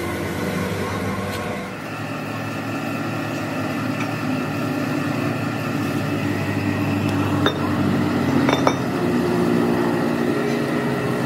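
Steady hum of running workshop machinery with several level tones. Over it come metal clinks, two sharp ones about two-thirds of the way through, as the steel bull gear is handled and set down against a steel block.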